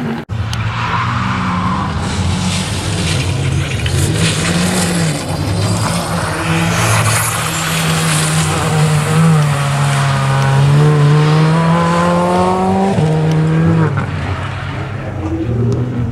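Rally car engine driven hard on a circuit, its pitch rising and falling with the throttle. A long climb ends in a gear change about thirteen seconds in, and the engine then climbs again. The sound cuts out briefly just after the start.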